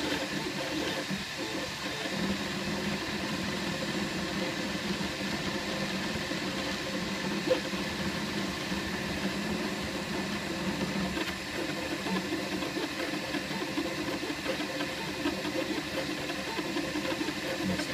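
Flashforge Dreamer 3D printer at work: its stepper motors whine in shifting tones as the print head moves back and forth laying down honeycomb infill, over a steady hum. One brief click sounds about halfway through.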